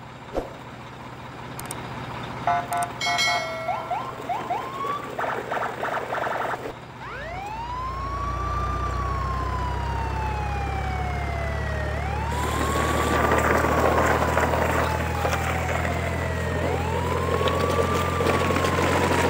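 Wailing siren sound effect, each cycle rising quickly and then falling slowly, repeating about every four and a half seconds over a steady low engine rumble. Before it starts, a few seconds of short electronic beeps and chirps.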